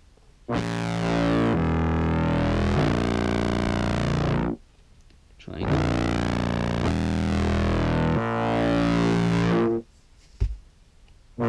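Sampled contrabass clarinet through a fuzz and effects pedal chain: two long, low, distorted held notes. The brightness of each note sweeps slowly up and down under a modulating filter, and there is a short click near the end.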